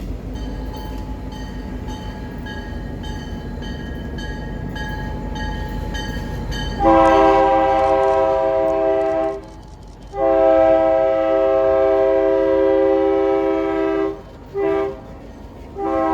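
Former Canadian National GP9U 7032's air horn sounding the grade-crossing signal: long, long, short, then a final long blast starting near the end, a loud chord of several notes. Before the horn, the locomotive's diesel engine rumbles low under a bell ringing about twice a second.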